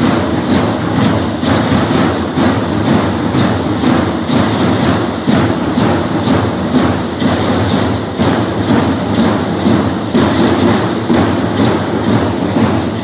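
Matachines dance percussion: a drum beating a quick, steady rhythm, with rattles shaking in time over a low pounding.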